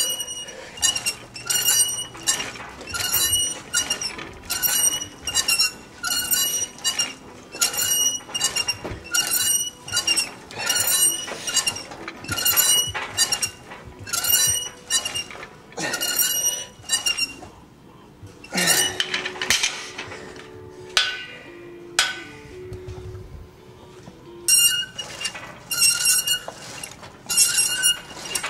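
Steel plates of a cable machine's weight stack clinking against each other as the stack is lifted and lowered through repetitions, about two clinks a second. The clinking breaks off for several seconds in the middle, then resumes near the end.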